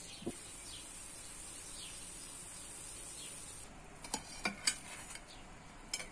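Food sizzling in a frying pan, a steady high hiss that cuts off about three and a half seconds in. It is followed by several sharp clinks of a utensil against cookware.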